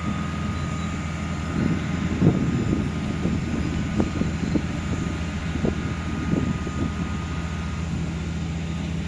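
Outdoor street ambience: a steady low drone, with faint irregular sounds rising and falling through the middle few seconds.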